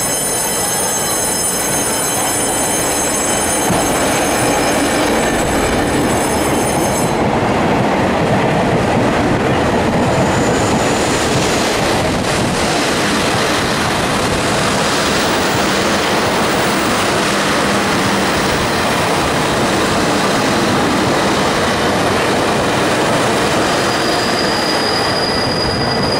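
Train running on the rails, a steady loud rumble of wheels and car body, with a thin high whine over it for the first seven seconds or so.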